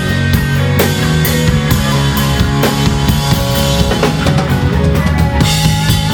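Instrumental rock band playing live: a drum kit keeping a steady beat with bass drum and snare hits under held notes from bass and electric guitar.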